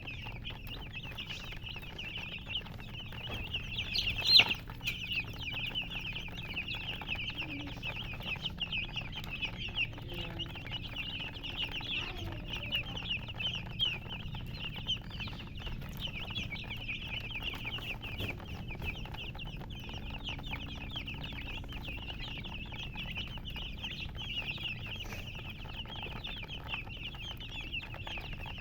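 A brood of baby chicks peeping without pause, many short high cheeps overlapping, with a hen clucking among them. One louder, sharp sound comes about four seconds in.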